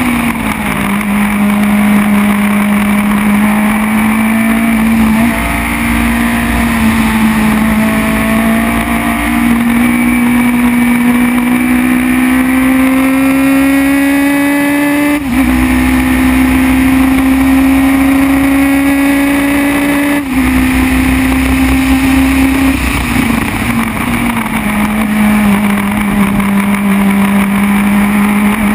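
Formula BMW single-seater's four-cylinder BMW motorcycle-derived engine heard from the cockpit at full throttle, its pitch climbing through the gears with quick drops at each upshift. Near the end the note falls as the car slows for a corner, then rises again as it accelerates out.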